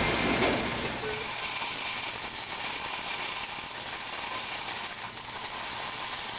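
MIG welding arc laying hardfacing wire onto a steel feeder auger's flighting: a steady crackling hiss.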